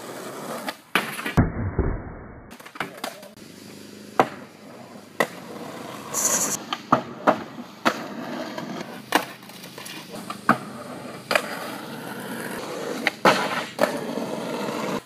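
Skateboard wheels rolling on street asphalt, broken by a dozen or so sharp clacks of tail pops, landings and the board striking a wooden grind box.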